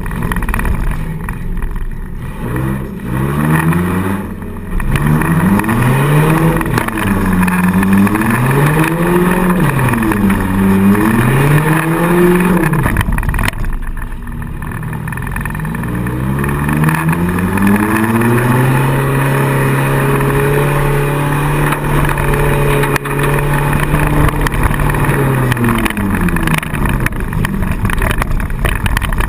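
Four-cylinder demolition derby car's engine, heard from inside the car, revving up and down over and over, then held at steady high revs for several seconds before dropping back near the end.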